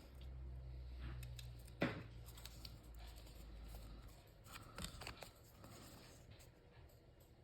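Paper cardstock being handled at a craft table: soft rustling with a few sharp clicks, the loudest about two seconds in and another cluster around five seconds. A low hum fades out partway through.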